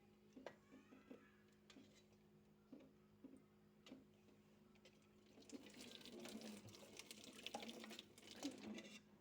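Faint water running or pouring into a sink, starting about five and a half seconds in, after a few light knocks.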